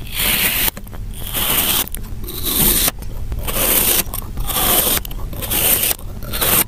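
Kitchen knife slicing through a block of kinetic sand: a crunchy, grainy scrape with each cut, repeated about once a second.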